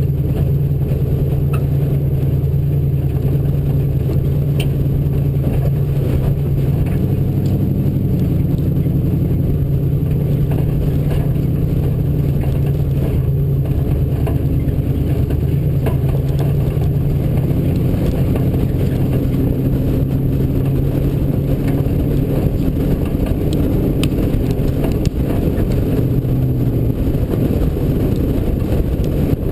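Off-road race Bronco's engine running steadily at mid revs, its pitch shifting slightly every several seconds, with scattered short knocks and rattles over it.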